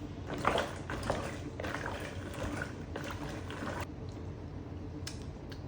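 Water sloshing and swishing in a pot of raw peanuts, a few irregular splashy strokes over the first four seconds, then quieter.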